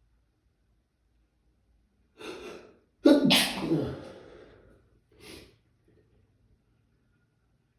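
A person sneezing from allergies: a sharp in-breath about two seconds in, then one loud sneeze, then a short breath afterwards.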